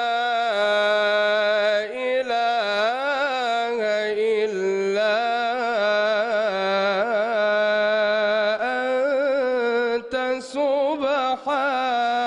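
A man's solo voice in mujawwad Qur'an recitation, drawing out long, ornamented melodic phrases with a wavering vibrato. There are short breaks about two seconds and ten seconds in.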